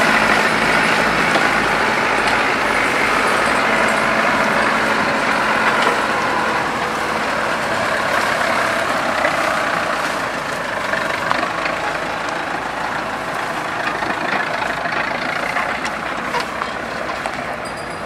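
Diesel engines of a combine harvester and a farm tractor running steadily at a grain trailer, slowly growing fainter.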